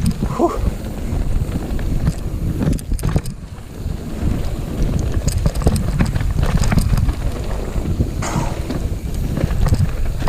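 Mountain bike descending a rough trail: wind buffeting the microphone over steady tyre noise, with many short clattering knocks from the bike over the ground. The noise dips briefly about three seconds in.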